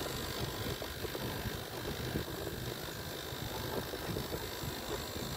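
Panasonic inverter air conditioner's outdoor unit running under test while being charged with refrigerant, a steady mechanical hum and rumble. The compressor current is climbing slowly, just under one amp.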